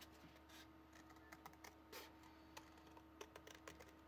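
Scissors snipping through a thin cardboard box: faint, irregular small clicks and crunches of the blades closing through the paperboard, over a faint steady hum.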